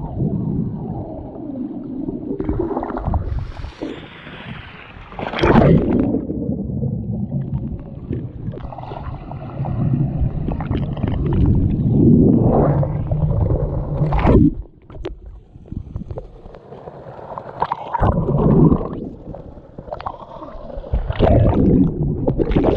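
Muffled churning water and bubbles heard from a camera held underwater in a swimming pool, swelling in loud surges every few seconds as the water is stirred by swimming.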